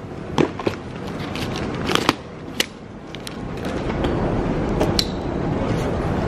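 A hardshell wheeled suitcase being handled: a few sharp clicks and knocks as its telescoping pull handle and tags are worked, then a steady rolling of its wheels over a hard floor.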